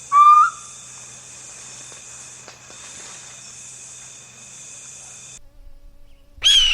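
Insects droning steadily at a high pitch for about five seconds, opened by a short loud pitched animal call and followed near the end by another loud animal call whose pitch slowly falls.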